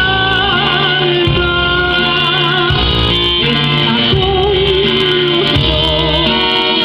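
A woman singing a son from the Isthmus of Tehuantepec into a microphone, with wide vibrato on held notes, over electronic keyboard accompaniment with a steady bass pulse.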